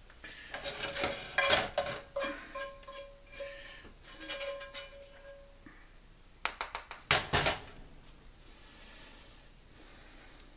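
Metal spoon clinking and scraping against a metal pizza pan and a cast-iron skillet while cooked vegetables are spooned out, the pan ringing after the strikes. A quick run of sharp knocks and a heavier clunk comes about seven seconds in.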